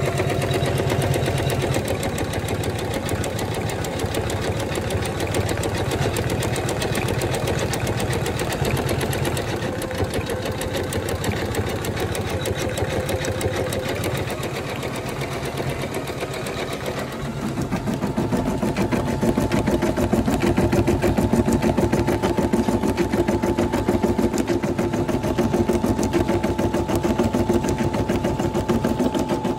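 Computerised embroidery machine stitching a design, a fast, even needle rhythm with a motor hum. About seventeen seconds in the tone shifts and the run gets a little louder.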